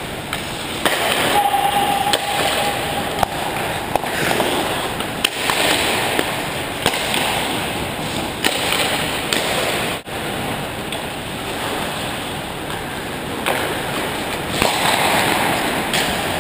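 Ice hockey skates scraping and carving on the ice around the goal, with scattered sharp clacks of sticks and puck.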